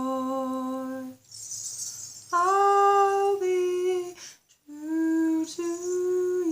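A lone voice holds long, steady wordless notes in a few phrases, each about a second or two, with short breaks between them and no accompaniment.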